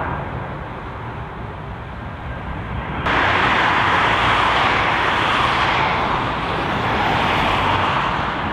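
Steady rushing noise of jet aircraft engines that starts abruptly about three seconds in, after a stretch of quieter, muffled hiss.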